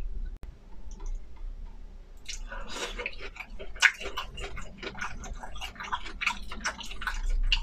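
Close-miked wet chewing and lip-smacking of food in a mukbang. It starts about two seconds in after a quiet moment and runs as a dense run of small clicks and smacks, with one sharp louder click near four seconds.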